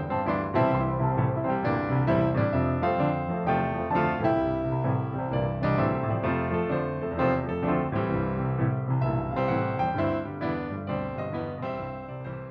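Background music played on piano or keyboard: a run of quick notes over a sustained bass, easing off slightly near the end.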